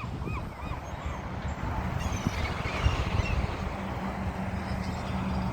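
Seagulls calling: a quick run of short repeated calls in the first second, then a burst of higher, overlapping squeals from a crowd of gulls about two to three seconds in. Wind rumbles on the microphone throughout, with a low steady hum joining about two seconds in.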